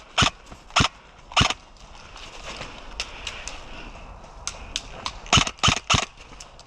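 Airsoft rifle firing single shots as sharp snapping cracks: three in the first second and a half, a few fainter shots in the middle, then three more in quick succession near the end.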